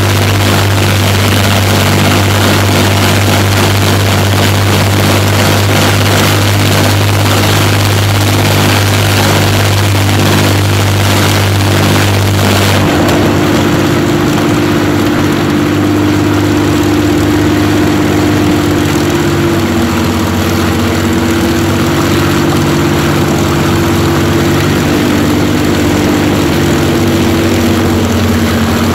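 Two Rolls-Royce Merlin V12 aero engines running together on test stands, the nearer one turning its propeller: a loud, steady drone. About thirteen seconds in the sound changes, the high hiss dropping away and the engine note settling into a new steady drone.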